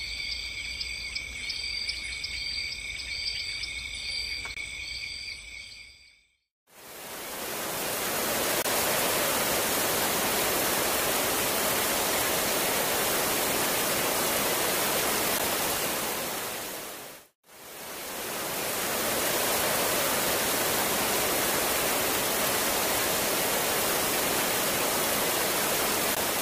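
Night insects trilling steadily, with a short chirp repeating a little more than once a second, fade out about six seconds in. A loud, even rush of water then fades in, cuts out briefly about seventeen seconds in, and comes back.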